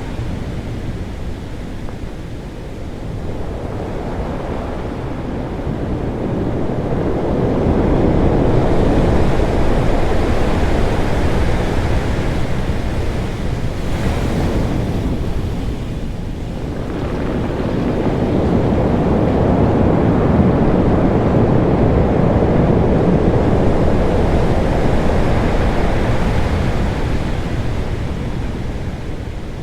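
Ocean waves crashing on rocks: loud surf that swells and falls away in two long surges, easing between them.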